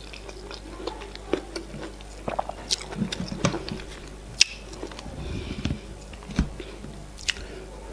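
Close-miked eating of semolina fufu and efo riro by hand: wet chewing and mouth clicks, with fingers pinching the soft fufu. Scattered sharp clicks throughout, the loudest about four and a half seconds in.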